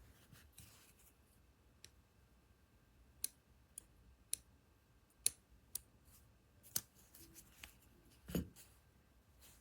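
Faint, irregular sharp clicks of small craft hand tools being handled and tapped, about eight over several seconds, with a duller knock near the end.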